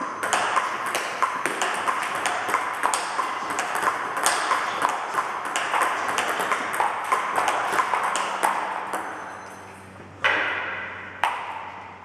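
Table tennis multiball drill: quick sharp clicks of balls struck by rubber paddles and bouncing on the table, several a second, which stop about nine seconds in. Two louder single knocks follow near the end.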